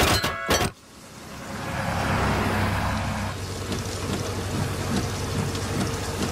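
A fast run of clanging hits stops suddenly under a second in. Then a vehicle driving on a wet road in the rain fades in and runs steadily, with a low engine hum and the hiss of tyres and rain.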